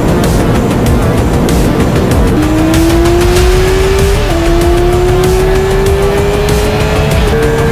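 Yamaha R6 inline-four engine revving hard under acceleration, its pitch climbing steadily from about two seconds in. The pitch drops sharply at an upshift about four seconds in, climbs again, and drops at another upshift near the end. Heavy music plays over it.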